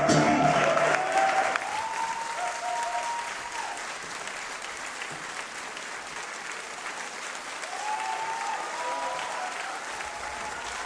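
Live audience applauding at the end of a song, loudest in the first second and a half, then steady. A few held calls from the crowd rise above the clapping twice.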